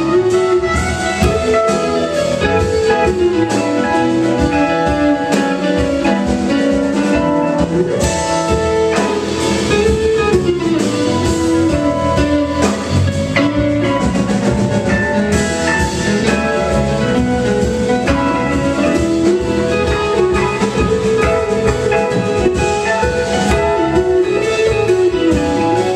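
Live rock band playing an instrumental jam: electric guitar lead weaving over bass, keyboards and a drum kit.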